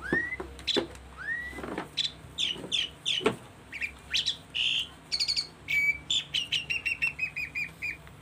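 Small birds chirping and calling, many short chirps and rising whistled notes, with a fast run of repeated notes near the end. A few sharp clicks from handling the plastic chest-strap mount are heard, the loudest about three seconds in.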